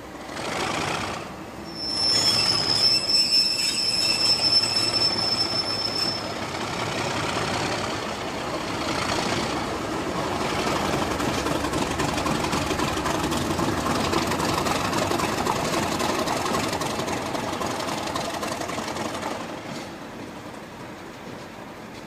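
A Class 37 diesel-hauled train of coaches running slowly through a junction. A high wheel squeal runs from about two to six seconds in, then comes a steady rumble of wheels and locomotive that fades as the train draws away near the end.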